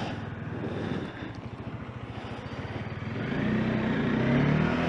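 Bajaj Dominar 400's single-cylinder engine running while the motorcycle is under way. Its note swells and rises from about three seconds in as the throttle opens.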